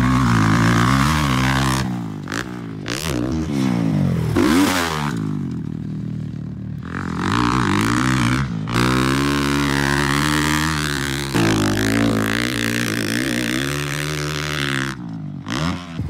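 Motocross dirt bike engine revving as the bike is ridden around a dirt track, its pitch repeatedly rising and falling as the rider opens and closes the throttle. The sound jumps abruptly a few times where the footage is cut.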